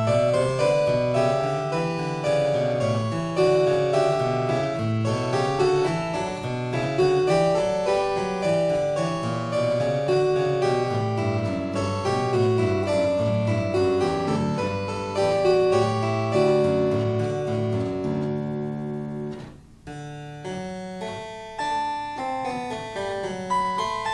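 Background keyboard music: an unbroken run of plucked or struck notes, with a short break in the sound about three-quarters of the way through before the notes carry on.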